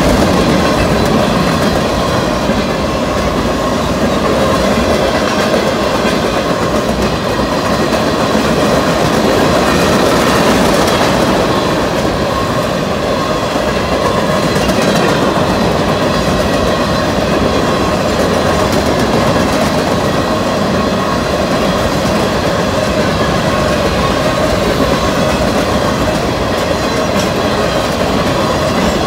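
Freight cars of a BNSF manifest train, covered hoppers and a centerbeam flatcar, rolling past close by: loud, steady noise of steel wheels running on the rails.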